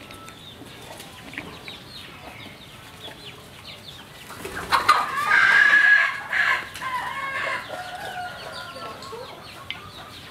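A rooster crowing once, a loud held call of about two and a half seconds starting about halfway through, with chickens clucking faintly throughout.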